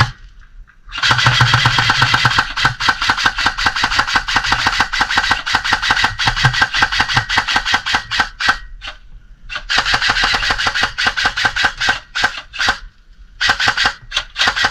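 Airsoft electric gun firing on full auto in three long bursts of rapid, evenly spaced shots, with short pauses between them.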